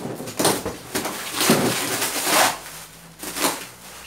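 A cardboard box's flaps being pulled open and a plastic air-pillow packing bag crinkling and rustling as it is pulled out, in a few short spells.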